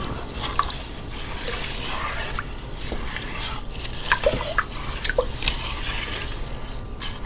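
Uncooked long-grain rice and cold water being stirred in a multi-cooker's inner pot with a plastic rice spoon: water swishing, with small drips and splashes.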